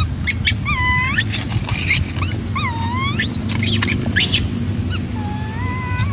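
Infant long-tailed macaque crying: a run of short, high, wavering cries that sweep up and down, then one longer, steadier cry near the end. These are the cries of a baby monkey trying to nurse at its mother.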